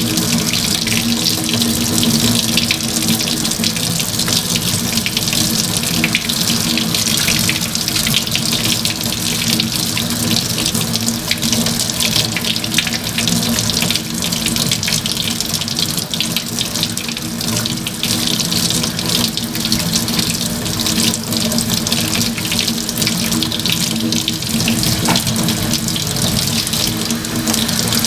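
Sink faucet running steadily, warm water splashing as a small puppy is rinsed under the stream, with a steady low hum beneath the hiss.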